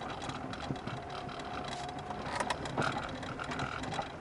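Lada Kalina heard from inside the cabin on a rough stony road: steady road and tyre rumble, with a few sharp knocks and clicks about two and a half to three seconds in. The clicks are a front-suspension knock mixed with the dashboard panel crackling. The owner has not yet traced the knock and first suspected the steering rack.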